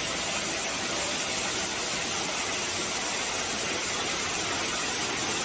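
Steady rushing water of a street flood, a constant even hiss with no breaks.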